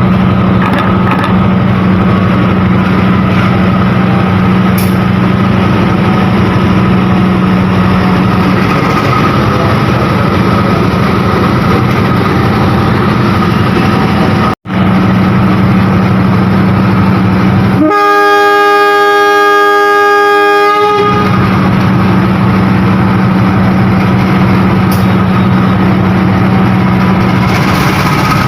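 Diesel locomotive's engine running with a steady low drone. A little past halfway through, its horn sounds one blast of about three seconds.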